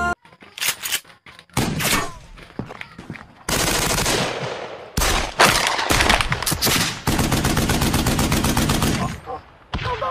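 Gunfire: a few scattered single shots, then a long run of rapid automatic fire from about five seconds in until about nine seconds in.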